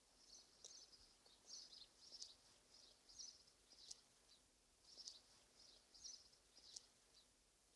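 Faint birdsong: a string of short, high chirps over otherwise near silence.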